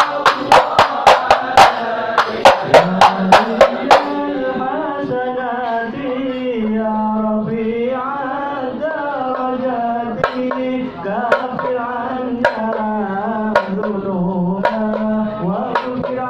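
Hand drums beat a quick run of strikes, about four a second, for the first four seconds. Then a sung Maulid chant takes over, with a single drum stroke about once a second.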